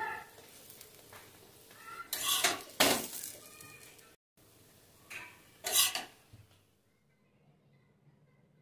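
Metal spatula scraping and knocking against a tawa while a paratha is turned and pressed, in several short, loud strokes about two to three seconds in and again around five to six seconds. It falls to near quiet near the end.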